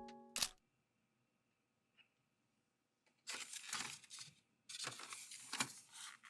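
Background music ends on a final note; after a pause of near silence come two stretches of crinkly rustling, each about a second long, like something being handled or unwrapped.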